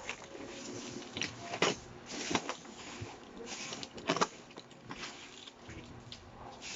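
Packaging being handled: a handful of sharp clicks and knocks, two close together about four seconds in, with rustling between them.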